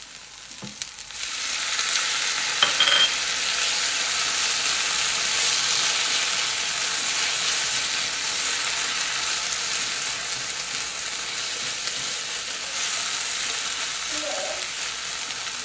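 Chopped tomato and pepper going into hot oil with frying onions in a cast-iron skillet: about a second in the frying jumps suddenly to a loud, even sizzle that then eases slowly, with a couple of short knocks near the start.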